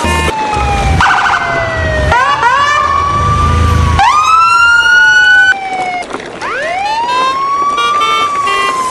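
Police-style siren wailing: slow rising and falling pitch sweeps, several overlapping, with a brief rapid warble about a second in.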